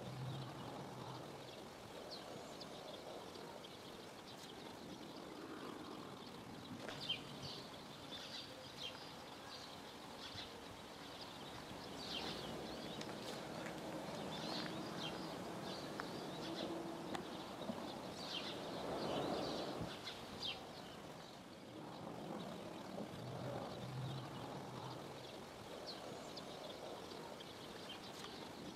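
Small birds chirping in many short, high calls, thickest from about a quarter of the way in, over a faint, steady low background rumble.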